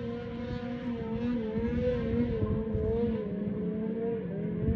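Snowmobile water skipping across an open river, its engine held at steady high revs to keep the sled skimming on top of the water, the pitch wavering slightly up and down.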